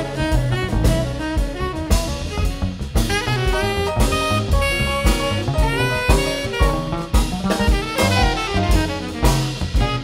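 Jazz band playing live: saxophones and brass over upright bass, piano, electric guitar and a drum kit.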